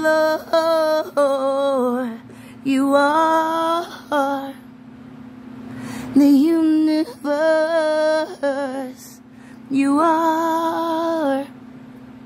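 A woman singing a worship song solo, in long held phrases with short pauses between them, her voice wavering on the held notes. A steady low hum runs underneath.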